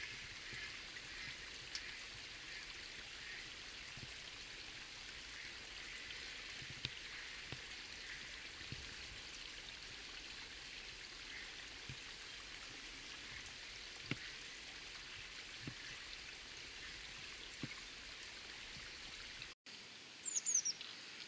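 Swollen, flooded river running steadily: an even, faint rush of water with scattered small ticks. Near the end the sound breaks off briefly, then a short high chirp is heard.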